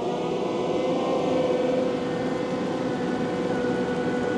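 Takeuchi TL12 V2 compact track loader running a high-flow Conetech grinding head through the soil: a steady machine drone with a held whine.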